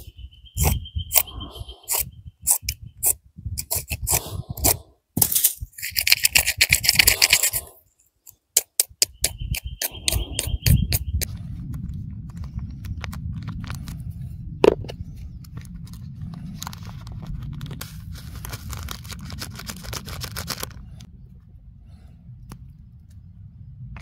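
Close handling of instant bibim-noodle packets: a run of sharp clicks and crinkles, then a longer tearing, crinkling noise about six seconds in as a packet is ripped open. After that, lighter rustling and clicks over a steady low rumble while the red sauce packet is squeezed out over the noodles.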